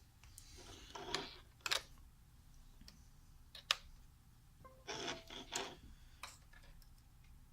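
A few faint clicks and rubbing sounds over quiet room tone, with two sharp clicks, about one and a half and three and a half seconds in.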